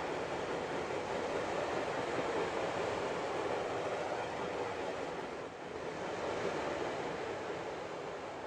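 Freight train cars rolling past, a steady rushing noise of wheels on rail with no horn, dipping briefly about five and a half seconds in and fading slightly near the end.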